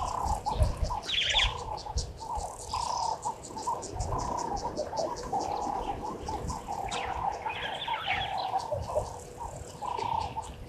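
Bushveld birds calling, with repeated short mid-pitched notes throughout, over a fast, high insect ticking.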